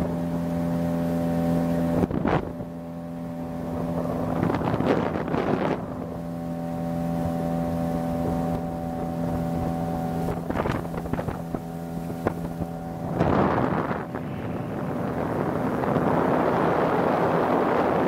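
Motorboat engine running steadily underway, with rushes of wind on the microphone and water along the hull. About thirteen seconds in, the engine tone drops under a louder, steady rush of wind and water.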